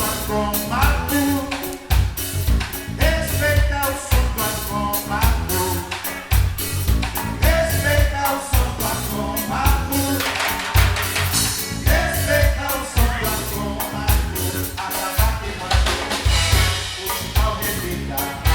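A live band plays a song with a sung vocal line over a steady, driving drum beat.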